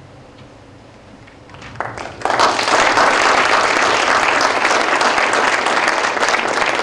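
Audience applauding, starting suddenly about two seconds in after a short lull.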